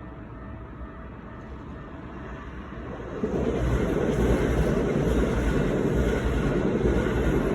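Keikyu Line local train passing close by: the steady rumble of wheels on rails builds up and becomes loud about three seconds in, staying loud to the end.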